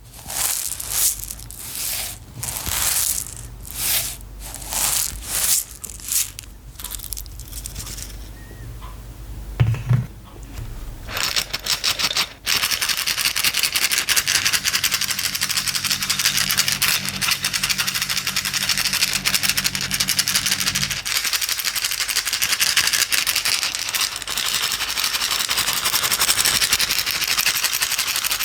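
Small hard items rattling as a container is shaken by hand: slow shakes about once a second for the first several seconds, then a pause with a single knock around ten seconds in, then fast continuous shaking.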